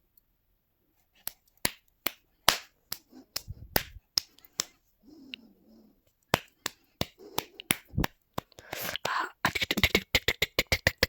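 A run of sharp smacks and pats at an uneven pace, sparse at first and coming fast and close together over the last few seconds.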